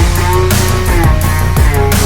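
Background music: an instrumental stretch of a hard-hitting hip-hop/rock track with heavy drums and sustained bass and synth notes, no vocals.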